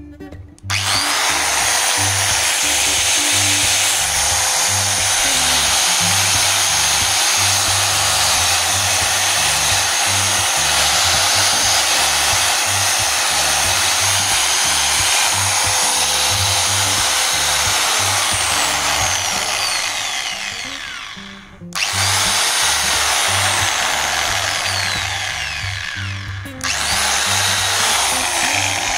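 A DeWalt DW810 710 W angle grinder runs free with no disc fitted. It switches on about a second in and runs steadily, switches off after about twenty seconds and winds down with a falling whine, starts again, winds down a second time and starts a third time near the end. Background music with a steady beat plays underneath.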